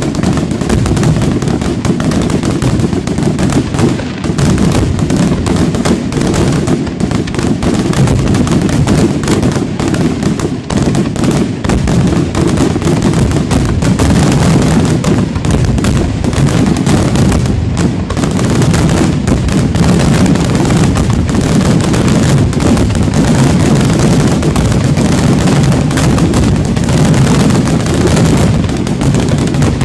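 Fireworks display: aerial shells bursting in a dense, continuous barrage, the bangs following so closely that they run together into an unbroken rumble.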